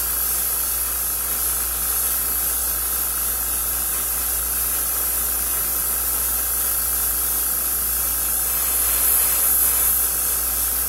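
Airbrush spraying paint, a steady, unbroken hiss of air.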